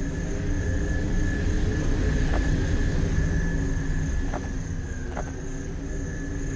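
A low, steady rumbling drone with faint high tones held over it, part of the film's sound design, with three soft clicks about two, four and five seconds in.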